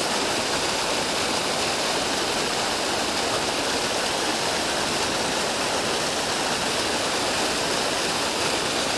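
Steady rush of white water churning out of a spillway outlet into a creek pool, an even noise that does not change.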